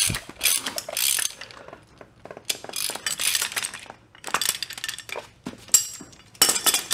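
Steel arms and jaws of a large 8-inch jaw puller clinking and rattling against a ZF S5-42 transmission gear and shaft as the puller is set up by hand. The metal knocks come in irregular bunches.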